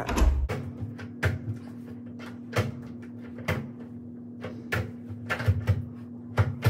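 Broken hotel room door being worked by hand: irregular clicks and knocks from the handle and latch as it sticks and will not open properly.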